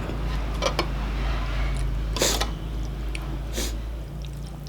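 A person eating instant noodles: three short mouth noises, the middle one loudest, over a steady low hum.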